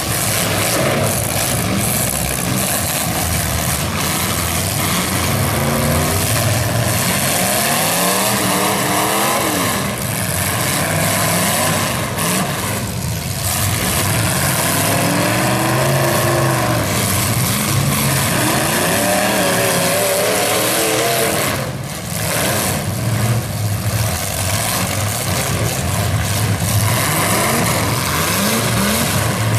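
Several demolition derby cars' engines running hard at once, revving up and down as they drive and ram each other in the dirt, with a couple of brief lulls.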